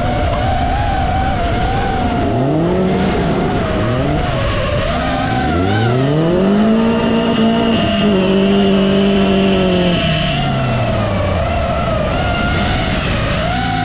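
Rallycross race cars' engines revving hard, climbing in pitch through the gears, then easing off about ten seconds in and building again near the end, with tyres skidding on the loose track. Throughout there is a wavering high whine, likely the FPV drone's own motors and propellers.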